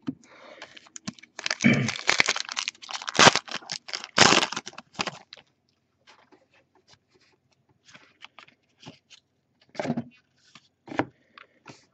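Trading cards and a pack wrapper handled by hand: loud crinkling and tearing through the first five seconds or so, then softer sliding and flicking of cards with scattered clicks.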